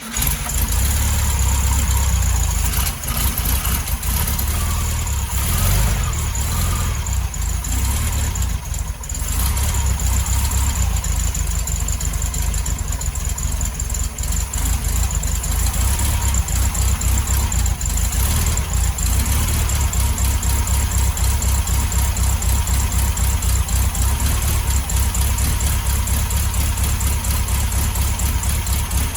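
Air-cooled VW Beetle flat-four engine running just after catching, uneven for the first several seconds with a brief dip about nine seconds in, then settling into a steady idle. It runs now that the carburetor is drawing fuel again after it would not start.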